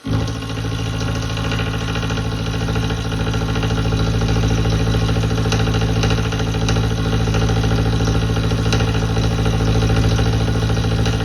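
Milling machine switched on, its motor and spindle starting at once and running with a steady hum.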